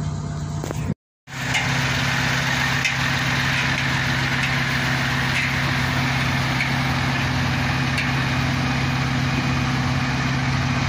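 The diesel engine of a Liebherr 90-ton mobile crane runs at a steady hum while the telescopic boom is worked in a retract test. The sound cuts out briefly about a second in, then carries on steady and a little louder.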